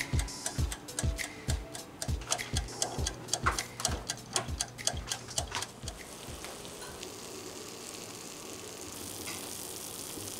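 Background music with a steady beat of about two kicks a second, clicking percussion and held notes, ending about six seconds in; after it only a faint steady hiss.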